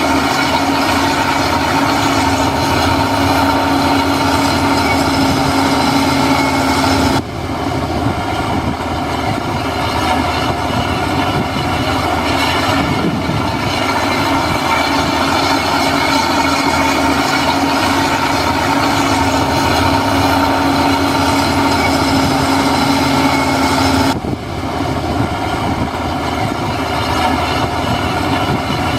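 Heavy earthmoving machine's diesel engine running steadily with a mechanical clatter. The sound shifts suddenly about seven seconds in and again near twenty-four seconds.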